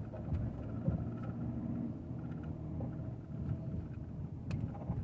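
VW Passat B8 heard from inside the cabin while driving slowly, its engine running at low revs under light load along with road noise.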